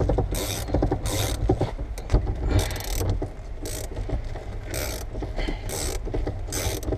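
Viper wire cut-out tool being cranked, winding its cutting wire through the urethane bead that holds a car's back glass. It makes a short scratchy rasp about every two-thirds of a second over a steady low rumble.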